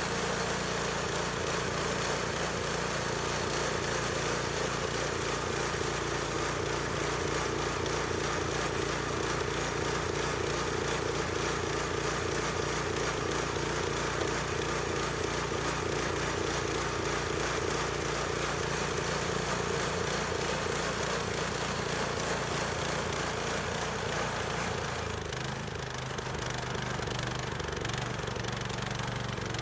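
Gas-engine bandsaw sawmill running steadily, sawing through box elder. Near the end the sound drops a little and loses some of its hiss.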